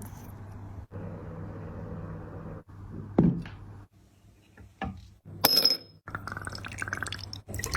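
Kitchen cooking sounds over a steady low hum: a knock about three seconds in, a bright ringing clink about five and a half seconds in, then a quick patter of small clicks and trickling water near the end.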